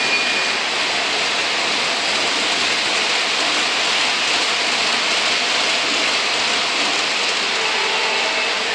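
O gauge model trains running on three-rail metal track: a steady, even rushing noise of wheels rolling on the rails.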